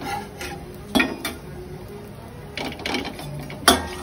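Steel spatula scraping and knocking on an iron tawa while pav buns toast in ghee: a handful of sharp scrapes, the loudest just before the end.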